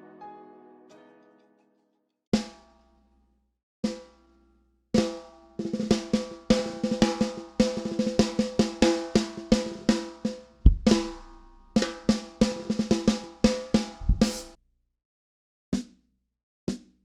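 Snare drum played with sticks: two single strikes, then about ten seconds of fast rolls and fills, with a couple of bass drum kicks. Then a few more single strikes. The snare is a budget drum damped with foam and masking tape, its snare wires tied on with a guitar G string.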